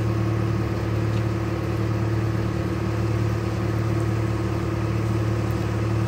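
Bucket truck engine idling steadily and quietly while the boom is worked, without being revved up.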